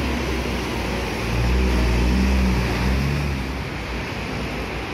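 A bus's diesel engine rumbling low as the coach pulls away, fading about three and a half seconds in, under the steady hiss of heavy rain.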